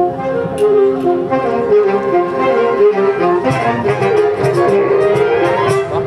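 Saxophone ensemble playing Latin-style music, several saxophones holding chords and moving lines together. Sharp percussion hits join in more often about halfway through.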